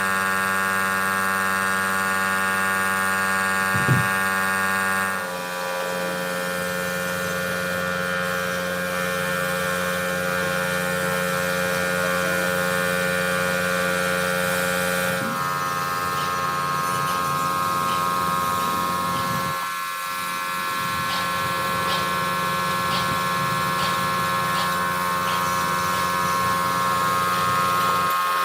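Metalworking machinery running with a steady whine and hum. Its pitch shifts abruptly twice, and there is a single knock early on and a few light ticks later.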